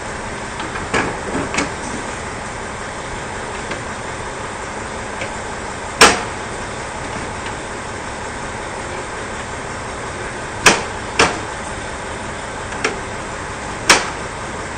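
KiHa 40 diesel railcars idling with a steady drone, while metal clanks ring out at irregular intervals from the coupling work between the two cars' ends: the loudest about six seconds in, two close together near eleven seconds, and another loud one near the end.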